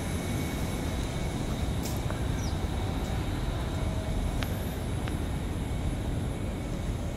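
Steady outdoor city noise: a low rumble of road traffic mixed with wind buffeting the microphone, with a few faint clicks.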